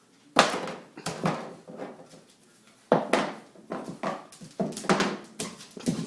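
A puppy playing with a chew bone: a string of irregular knocks and clatters, about ten of them with short quiet gaps between, as the bone is bitten, tossed and dropped on a hard floor.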